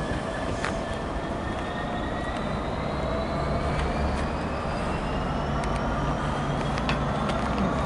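Class 66 diesel-electric locomotive's two-stroke V12 engine running under power: a steady low drone with a high whine that rises slowly in pitch, and a few faint clicks.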